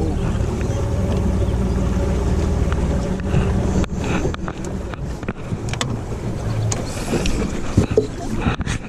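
Boat's outboard motor running at low speed with a steady hum. After about three and a half seconds the hum eases and a series of sharp knocks and handling clatter takes over.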